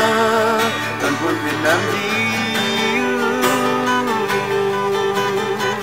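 Acoustic guitar playing an instrumental break between sung lines of a ballad, with the singer's last held note trailing off in the first second.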